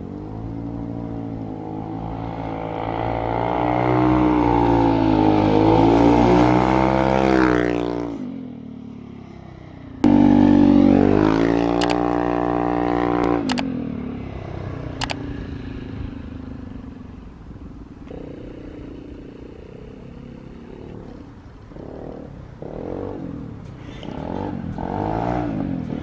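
Vespa GTS 300 single-cylinder four-stroke scooter engine through a replica Akrapovic slip-on exhaust, riding past under throttle. Its note rises and swells for several seconds, then fades. It cuts in loud again with a falling pitch as the scooter passes and goes away. Near the end it builds again as the scooter approaches.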